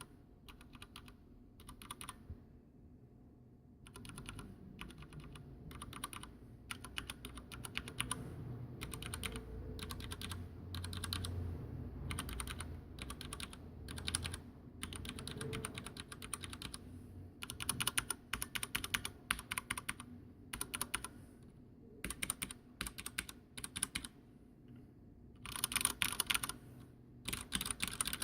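Typing on a mechanical keyboard with brown tactile switches: keystrokes come in quick runs broken by short pauses, with a longer pause about three seconds in.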